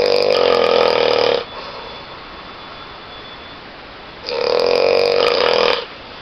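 A person snoring loudly: two long, buzzing snores of about a second and a half each, roughly four and a half seconds apart.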